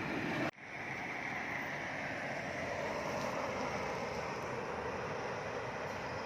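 Heavy road vehicle running past, steady engine and tyre noise, with a brief cut-out of the sound about half a second in.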